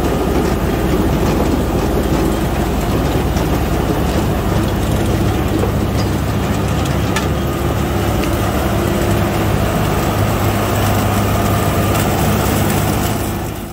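John Deere tractor engine running under load while the trailed onion harvester's rod-chain elevator clatters, rattling the lifted onions and soil as they are carried up the web.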